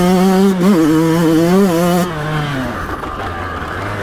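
Yamaha YZ125X 125 cc two-stroke single-cylinder dirt bike engine running at high revs, the pitch rising and dipping with the throttle. About halfway through the throttle comes off and the engine drops to a lower, quieter run.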